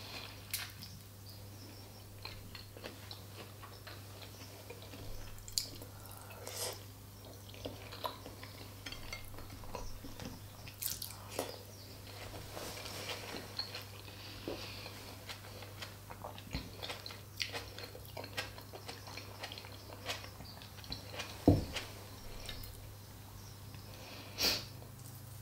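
Close-miked eating sounds of a person chewing soft food such as boiled potato and smoked fish: soft wet mouth sounds and small clicks, scattered irregularly, with one sharper click about twenty-one seconds in.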